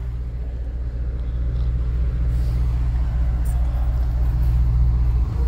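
Shannon-class lifeboat's twin diesel engines running in the boathouse before a slipway launch, a steady low rumble that grows gradually louder.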